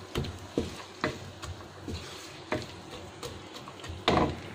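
Sliced onions and green chillies frying in hot oil in a nonstick wok, sizzling under the scrapes and taps of a wooden spatula stirring them, about one every half second, with the loudest scrape near the end.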